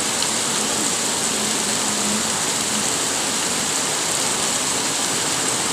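Heavy rain pouring down steadily, an even hiss of rain with a faint low hum in the first half that stops about halfway through.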